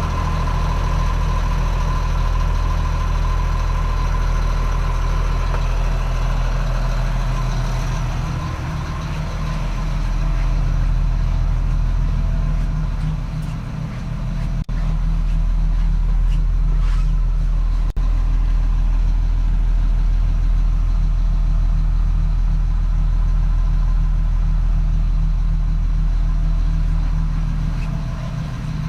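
Engine of a 2006 Blue Bird Vision school bus idling steadily, with two short clicks in the middle.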